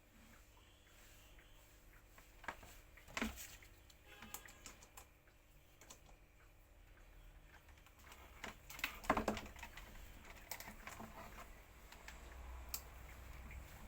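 Irregular light clicking and tapping of parts and tools being handled during repair work, with louder knocks about three seconds and nine seconds in.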